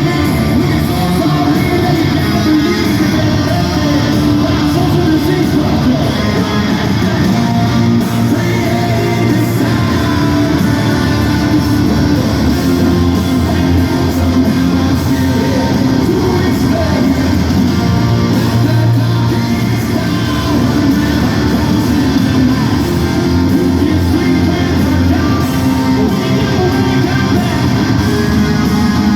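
Live rock band playing loudly in an arena: distorted electric guitars, bass and drums with a sung vocal, heard with the hall's echo.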